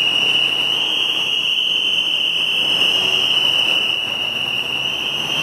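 A steady high-pitched tone, like an alarm or buzzer, that holds one pitch without a break, over a background rush of street traffic.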